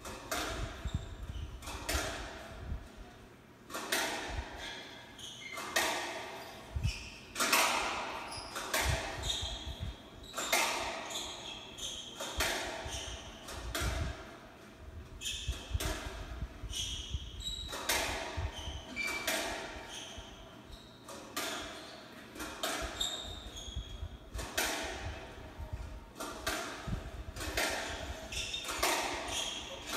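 A doubles squash rally heard through a television's speaker: the ball cracks off rackets and the court walls about once a second, each hit echoing in the hall, with short high squeaks of shoes on the wooden floor between hits.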